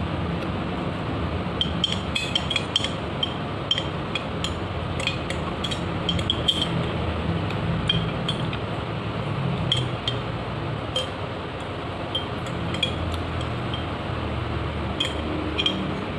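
Metal spoon scraping and clinking against the inside of a glass mason-jar mug, scooping out the last spoonfuls of overnight oats: light, irregular clinks that come in clusters.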